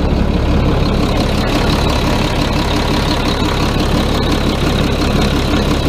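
A front loader's Yuchai diesel engine running steadily at a constant, low speed.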